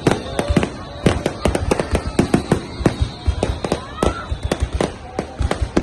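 Fireworks display: a dense run of sharp bangs and crackles, several a second, without a break.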